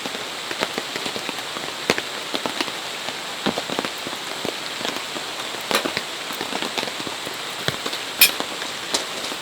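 Steady rain with scattered sharp drops tapping, and one louder tap about eight seconds in.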